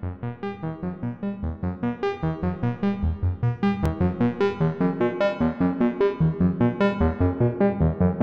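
Wavetable synthesizer music, entirely synthetic: a rapid, even stream of short pitched notes, about five a second, slowly growing louder.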